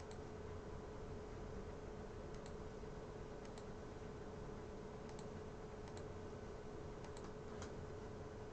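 Faint, scattered clicks of a computer mouse and keyboard, a single click or a quick pair every second or two, over a steady low hum with a faint steady tone.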